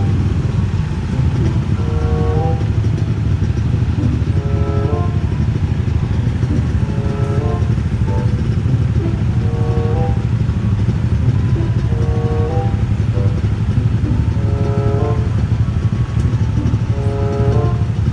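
Motorcycle engines idling in a queue at a railway level crossing, while the crossing's warning alarm repeats a short phrase of tones about every two and a half seconds to signal an approaching train.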